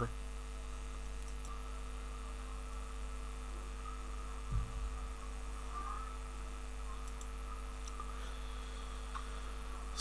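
Steady electrical mains hum with a faint high whine, picked up by the recording microphone, and a single soft low thump about halfway through.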